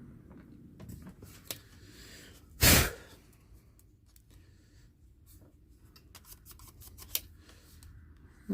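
Light wiping and scattered small clicks as a cassette deck's rubber pinch roller is rubbed clean with solvent, with one short, loud burst of hissing noise a little under three seconds in.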